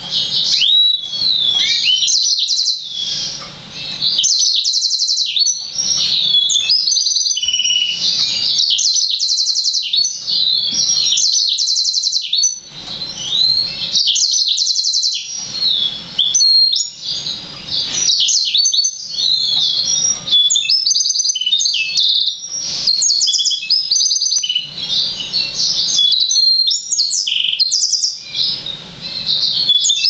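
A six-month-old yellow-fronted canary × black-throated canary hybrid singing: a long run of high, fast twittering phrases with rapid trills and quick up-and-down sweeps, broken only by short pauses. This is the still-immature song of a young bird that has not yet reached its adult form.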